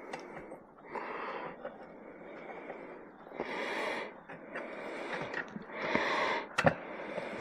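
A man breathing heavily through his nose while working, with several loud exhales or snorts about a second apart or more, and a couple of short metallic clicks near the end.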